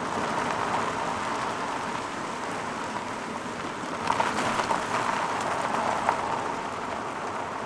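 Vehicle tyres rolling steadily over a gravel road, giving an even hiss with a few light ticks about four seconds in.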